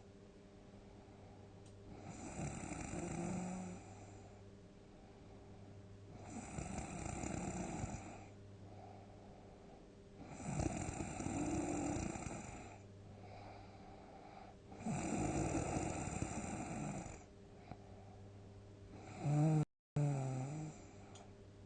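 A sleeping person snoring loudly: five deep, rasping snores about four seconds apart, with quiet breaths in between. Near the end the sound drops out for a split second in the middle of a snore.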